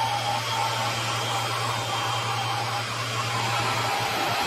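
Large-area laser marking machine at work marking a grid on board: steady rushing fan noise with a faint steady whine above it. A low hum underneath stops about four seconds in.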